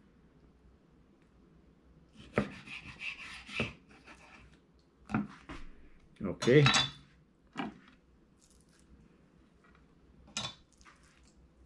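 Kitchen knife cutting portions from a skin-on steelhead trout fillet on a wooden cutting board: a run of clicks and scraping cuts about two to four seconds in, then single knocks of the blade and fish pieces on the board.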